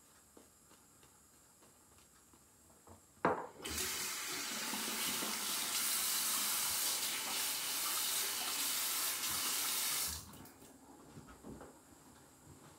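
Bathroom tap turned on with a clunk about three seconds in, water running steadily into the sink for about six seconds, then shut off abruptly.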